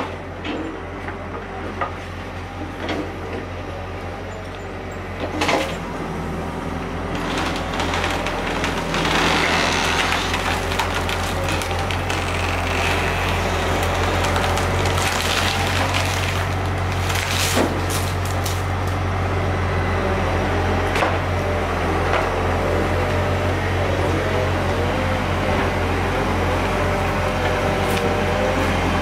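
Hydraulic demolition excavators' diesel engines running steadily as their grapples tear into an old masonry and timber building, with scattered knocks and clatter. Rubble and wood come crashing down about a third of the way in and again about halfway, and a wavering whine comes in near the end.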